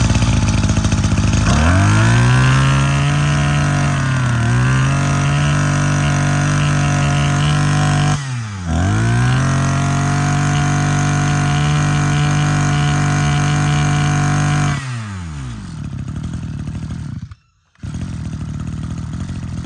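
The 26cc two-stroke engine of a Maruyama MB260 brush cutter starts at idle and is opened up to full throttle about 1.5 seconds in, then held at a high steady whine. The revs dip briefly about four seconds in, drop and climb back about eight seconds in, and fall back to idle near the end.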